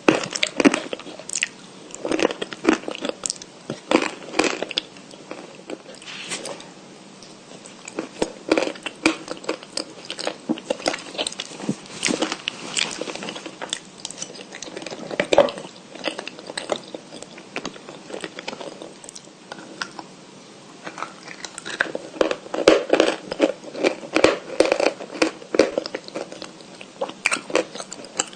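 A person biting and chewing crunchy white chalk, with sharp crunches at irregular intervals. The crunching is sparse for a few seconds in the middle and thick again near the end.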